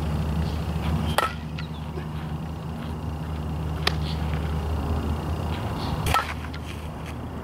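Three sharp cracks of a softball's impacts, about two and a half seconds apart, during outfield fielding practice, over a steady low rumble.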